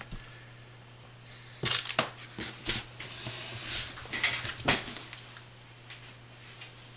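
Scattered light clicks and knocks of small RC parts and hand tools being handled and set down on a workbench, with a short hiss about three seconds in, over a steady low hum.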